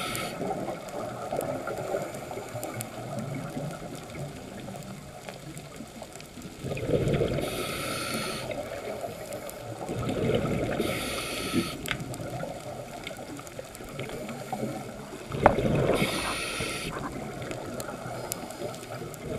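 Scuba divers breathing through regulators underwater: a hiss on each inhale and a burst of bubbling on each exhale, repeating every four to five seconds over a steady underwater wash.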